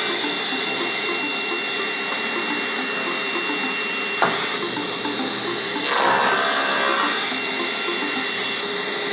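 Table saw running with a steady high whine, its blade cutting through a wooden board from about six to seven seconds in. A sharp knock about four seconds in.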